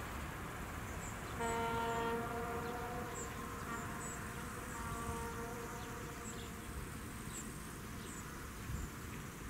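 A faint train horn sounds: a held blast starting about one and a half seconds in, then weaker drawn-out tones that fade over the next few seconds. Insects chirp throughout.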